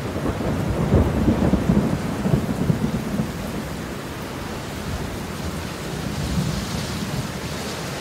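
Heavy rain falling steadily, with a crackling rumble of thunder over the first three seconds that then dies away under the rain.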